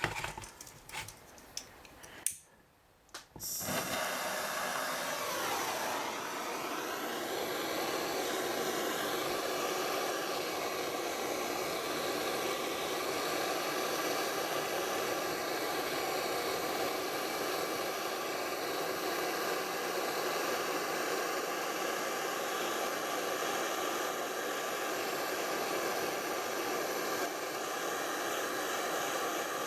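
A few sharp clicks, then a gas blow lamp lights about three and a half seconds in and burns with a steady roaring hiss, heating a fluxed crack in a joint to silver-solder it.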